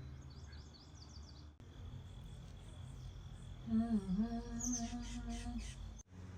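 Small birds chirping in quick high descending notes, then a low humming note held for about two seconds, dipping briefly in pitch, while more chirps go on over it.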